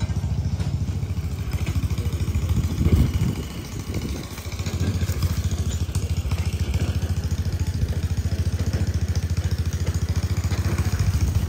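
An engine running steadily with a fast, even low chug, briefly quieter about three and a half seconds in.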